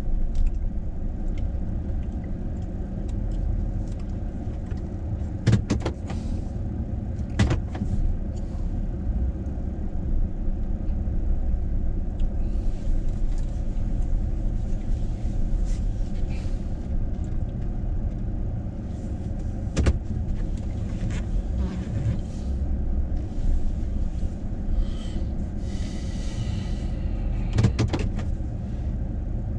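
An engine running steadily with a low rumble, with a few sharp clicks or knocks over it.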